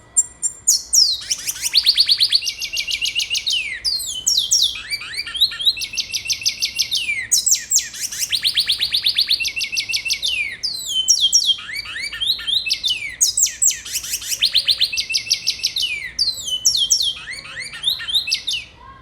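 Songbird of the kind called 'culo blanco' in Venezuela, in full loud song: fast trills of high notes broken by downward-sweeping whistles, the phrase repeated again and again with short pauses.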